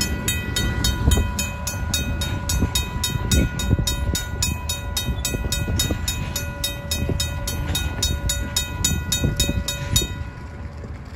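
A RACO mechanical grade-crossing bell ringing rapidly, about four strikes a second, over the low rumble and scattered wheel clunks of a freight train of tank cars rolling away. The bell stops about ten seconds in, and the train's rumble carries on more quietly.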